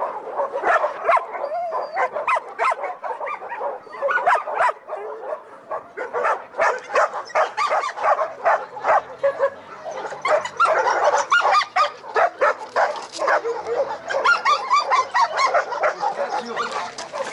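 Many laika hunting dogs barking and yipping over one another in a dense, continuous run of sharp barks, busiest in the second half.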